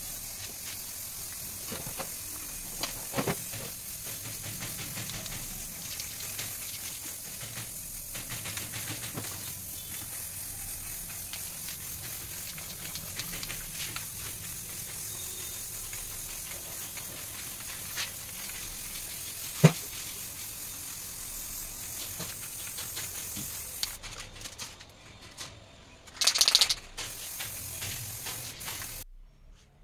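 Aerosol spray can of primer hissing in a long, steady spray as a first primer coat goes on, with a few sharp clicks along the way. About 24 s in the hiss stops and turns patchy, with a short louder rustle near the end.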